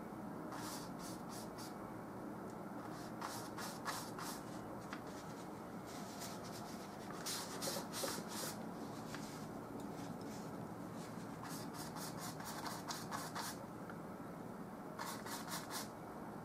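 Paintbrush working oil paint, short scrubbing strokes in quick runs about a second long with pauses between them, over a steady low room hum.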